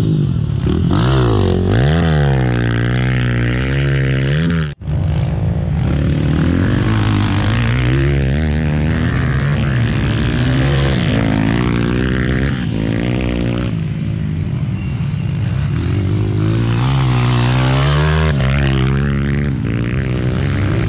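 Motocross dirt bike engines revving hard, their pitch rising and falling again and again as the bikes accelerate out of corners and back off. The sound drops out for a split second about five seconds in.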